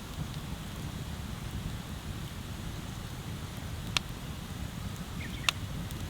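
Wood bonfire burning with a steady low rumble underneath, and two sharp pops of crackling wood, about four and five and a half seconds in.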